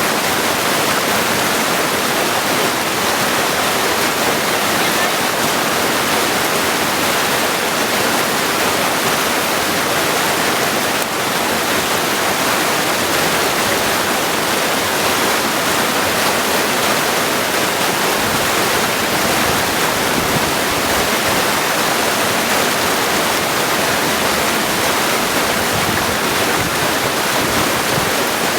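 Mountain creek water rushing and splashing over stones, a steady, even sound.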